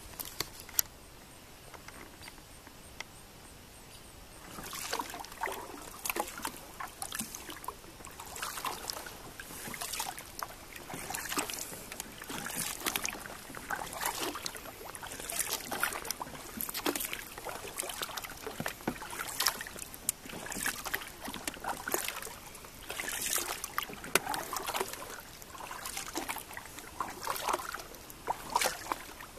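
Wooden double-bladed kayak paddle stroking through calm water, a splash and drip of water about once a second. The strokes start about four seconds in.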